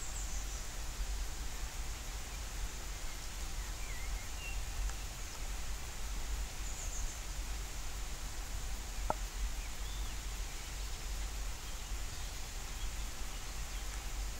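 Steady hiss of light rain over a low, constant rumble, with a few faint high bird chirps and a single sharp click about nine seconds in.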